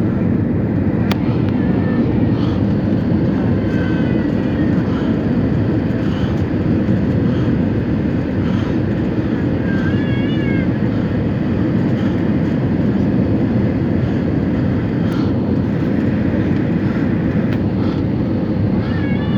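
Steady, loud airliner cabin noise, the deep even rush of engines and airflow heard from inside the plane. A few faint, short, wavering high-pitched cries rise over it, about four seconds in, around ten seconds and near the end.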